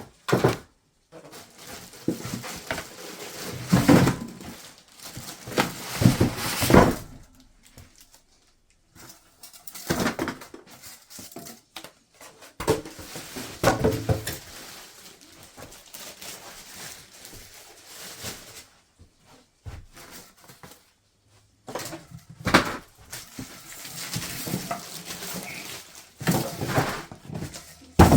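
Unboxing a portable propane griddle: packing material and cardboard handled and metal griddle parts knocking, in irregular bursts with short pauses.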